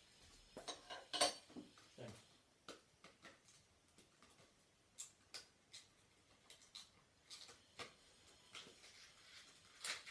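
Fidget spinners being handled, giving irregular light clicks and clinks of small hard pieces knocking together. The loudest clicks come about a second in and again near the end.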